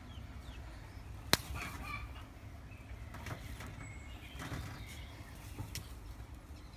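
Wyandotte hen sitting on her nest, giving a few short, soft clucks. A sharp click about a second in is the loudest sound, over a steady low hum.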